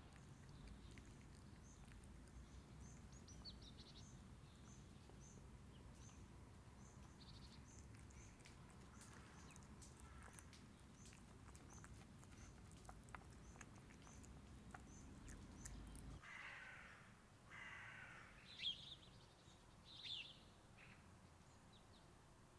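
Quiet outdoor bird ambience: a faint high chirp repeats about twice a second for most of it. About two-thirds of the way through come two harsh calls, then two brief sharp chirps, the loudest sounds here.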